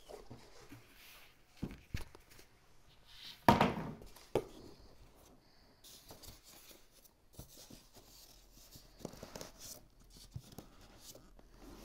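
Cardboard and foam packing of a large TV carton being handled: scattered scraping and rustling, with one loud knock about three and a half seconds in and a couple of smaller knocks around it.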